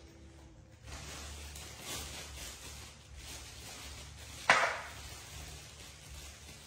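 Macaques handling and eating mangosteen fruit: faint rustling and handling noises, with one sharp, brief knock about four and a half seconds in.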